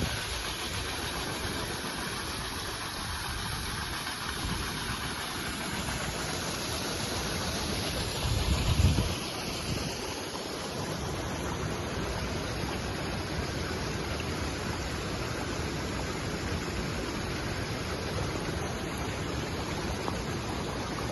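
Steady rushing roar of a waterfall, with a brief low rumble about nine seconds in.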